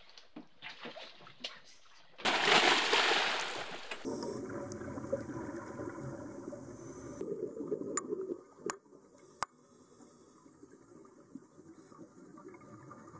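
A few light knocks of dive gear, then a loud splash about two seconds in as a scuba diver drops from the boat into the sea, followed by the muffled wash of sound underwater with a few sharp clicks.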